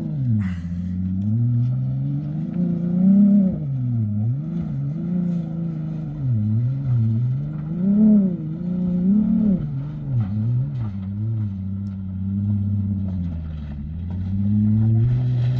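Jeep Gladiator's V6 engine revving up and down again and again under load as the truck claws at a steep dirt hill climb.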